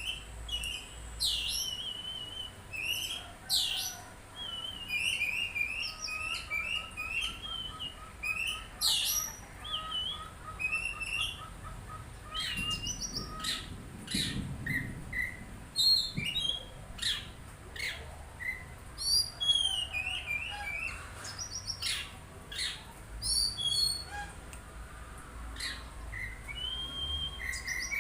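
Songbirds singing a rapid, varied mix of short chirps, whistled phrases and trills, several overlapping at different pitches. It is a lure song, played to set magpie-robins singing.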